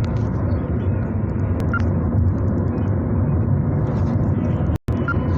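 Steady low rumble of road and engine noise inside a moving car's cabin. The sound cuts out for a moment near the end.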